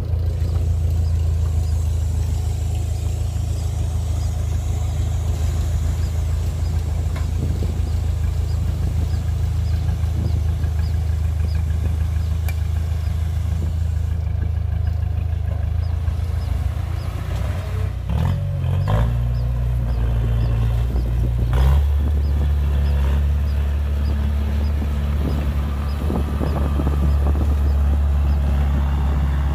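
Diesel engines of a small Komatsu D20A crawler bulldozer and a dump truck running steadily together while the truck tips its load of soil. The engine note shifts in pitch twice, about two-thirds of the way through.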